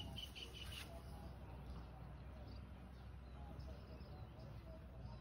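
Quiet open-field ambience: a low steady rumble with faint, scattered short chirps.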